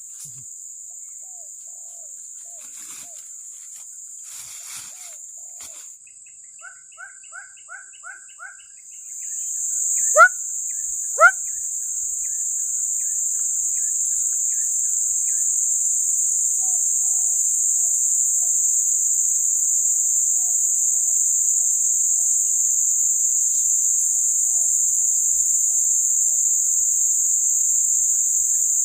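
A steady, high-pitched insect drone swells in about nine seconds in and holds loudly. Over it come scattered bird calls: a quick run of six chirps around seven seconds in, and two sharp rising whistles about ten and eleven seconds in, the loudest moments.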